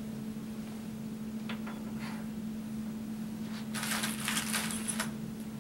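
Rustling and crinkling of small plastic bags of assembly hardware being rummaged through for about a second, a little past the middle, after a couple of light clicks of parts being handled. A steady low hum runs underneath.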